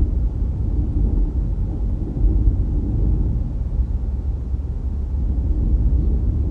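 Steady low rumble of a car driving along the road.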